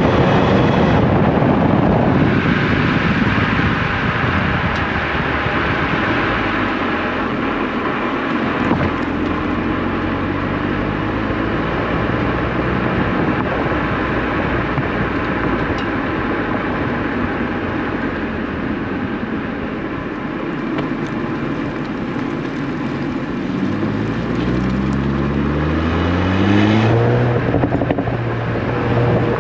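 Exhaust of a VW Golf 8 R's turbocharged 2.0-litre four-cylinder through its factory Akrapovic exhaust, recorded close to the tailpipe while driving. It holds a steady drone with road noise, then the revs rise as the car accelerates about 24 seconds in, settling to a steady lower note near the end.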